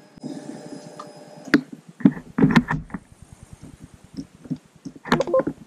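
Honda Transalp 700 electric starter cranking for about a second and a half, after its freshly cleaned starter-button contacts are tried. After a click, the V-twin engine catches and runs at an uneven idle, with a short louder burst near the end.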